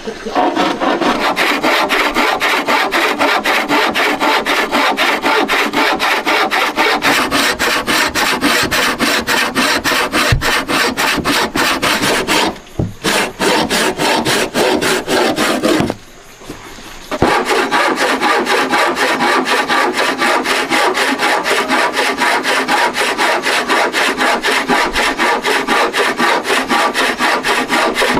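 A wooden frame saw cutting through a wooden board by hand, in fast, steady back-and-forth rasping strokes. The sawing stops briefly twice near the middle, then carries on at the same pace.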